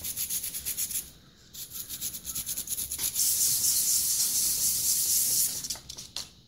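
A small steel part from a Jacobs keyless chuck being rubbed on fine emery paper laid flat, a dry rasping scrub to clean up its surface. It goes in quick back-and-forth strokes at first, then turns to a steady continuous scrubbing from about three seconds in, with a few light clicks near the end.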